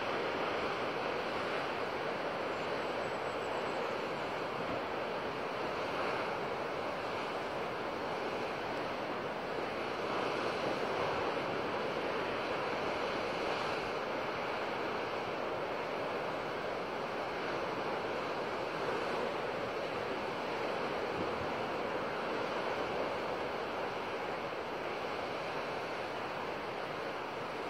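Ocean surf breaking and washing over rocks in a rocky cove: a steady rush of water with slight swells as the waves come in.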